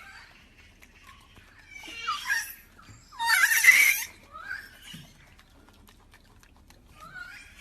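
An animal calling over and over with high, harsh calls: a short call about two seconds in, a longer, louder one about three to four seconds in, and fainter short calls after.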